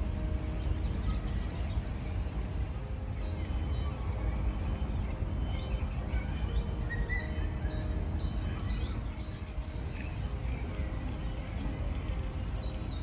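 Outdoor park ambience: a steady low rumble with small birds chirping and calling on and off, busiest in the first two-thirds and again near the end.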